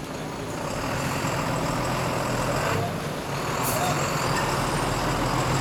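Engine of a stopped road vehicle idling steadily, a low hum under general traffic noise.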